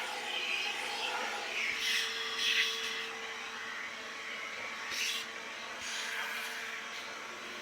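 Vacuum cleaner running steadily, sucking up dust, with a few brief louder surges of hiss.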